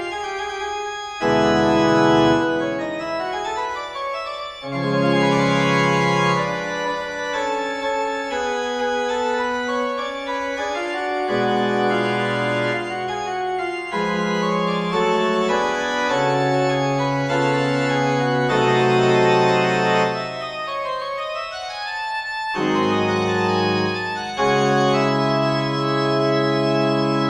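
Background music of slow, sustained chords, each held for one to three seconds before moving to the next.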